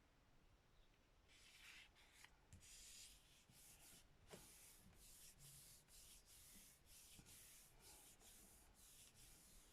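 Faint, quick rubbing strokes, about three a second: a hand burnishing a sheet of paper laid over an inked gel printing plate to pull the print.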